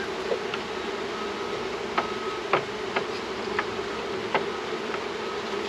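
Honeybees buzzing in a dense, steady hum around an opened hive, with a few light clicks and knocks scattered through it.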